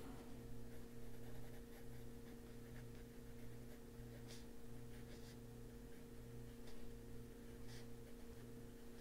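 Faint coloured pencil strokes scratching on paper, a few short strokes now and then, over a steady low electrical hum.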